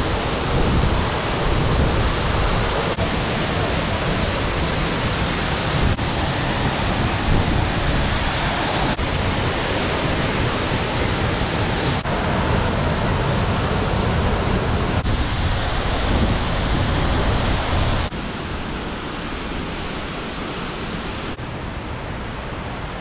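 Ozone Falls waterfall pouring down: a steady rushing of water that shifts abruptly in tone every few seconds and turns somewhat quieter about 18 seconds in.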